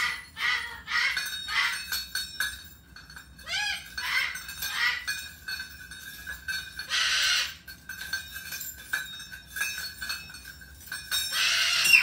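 Metal bird toys with small bells and chains clinking and jingling as they are handled, one bell ringing on steadily through the middle. A cockatoo gives a short call about four seconds in and harsh screeches about seven seconds in and near the end.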